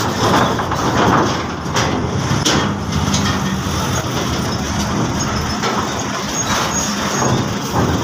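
Diesel cargo truck engine running as the heavily loaded truck drives slowly past at close range, with two short knocks about two seconds in.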